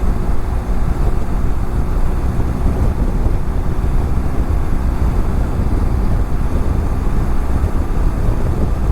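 Wind rushing steadily over a helmet-mounted camera's microphone on a moving motorcycle, with the even drone of a BMW F700GS's parallel-twin engine underneath.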